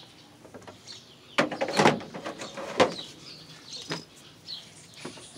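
Handling noises: a scrape and knock about a second and a half in, then single sharp clicks near three and four seconds, as the spliced power cable of a water pump is moved about. Faint bird chirps sound in the background.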